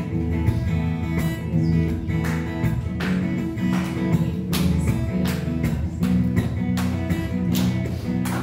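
Acoustic guitar strumming chords, the instrumental opening of a bhajan before the singing comes in.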